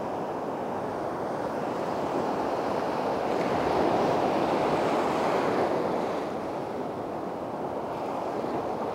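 High surf breaking and washing up the beach in a steady rushing hiss, swelling louder for a few seconds in the middle as a wave comes in, then easing.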